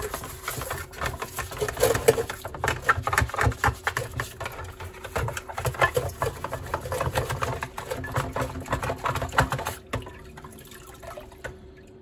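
Washing-up brush scrubbing a plastic washing machine soap drawer in a bowl of water, with rapid brush strokes and splashing. The scrubbing stops about ten seconds in.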